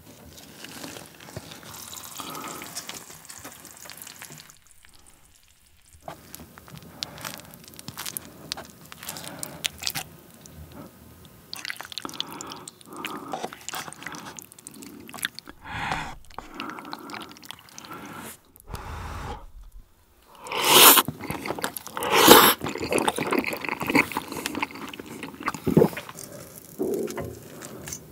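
Melted raclette cheese scraped off the heated wheel with a knife and dropping onto food, with wet, sticky sounds, alongside close-up eating sounds of cheese-covered tteokbokki; the loudest moments come a little past the middle.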